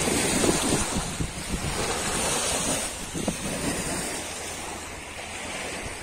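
Small lake waves lapping on a pebble shore, with wind on the microphone. The wash is louder in the first half and dies down towards the end.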